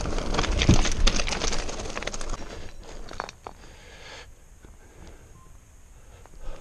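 Scott Genius 720 Plus mountain bike riding down a rocky trail, tyres crunching over stones and the bike rattling, with many sharp clicks. It goes much quieter about four seconds in.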